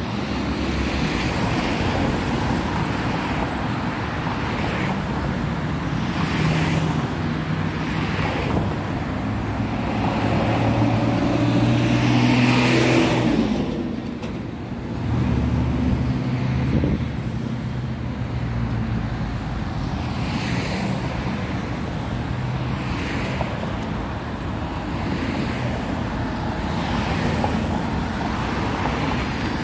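Road traffic on a city street: cars running and passing, a steady engine hum and tyre noise, with one vehicle passing louder about twelve seconds in.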